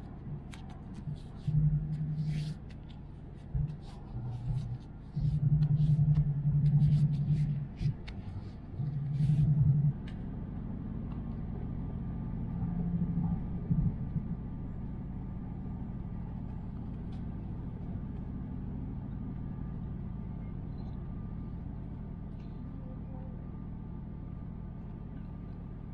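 Paper wrapper crackling and rustling as a bento box is unwrapped and opened, with loud low bumps of handling, over the steady low rumble of a Shinkansen passenger cabin. After about ten seconds only the train's running rumble remains.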